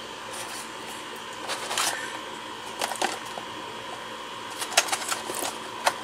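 Clear plastic blister packaging crinkling and clicking irregularly as it is handled, over a steady background hum.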